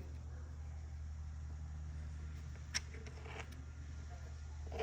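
A steady low machine hum, with a single light click a little past halfway.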